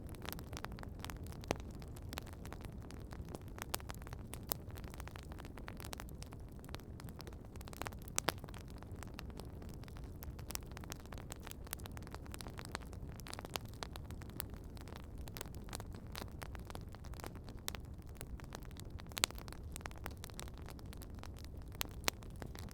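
Wood campfire crackling: frequent small pops and a few sharper snaps over a steady low rumble.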